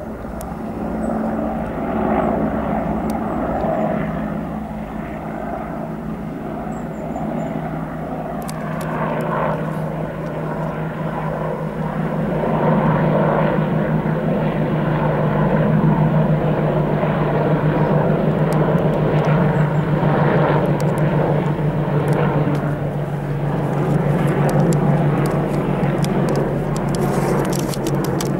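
Apache attack helicopter flying overhead: a steady rotor drone with a fast, even rotor beat. It grows louder about twelve seconds in.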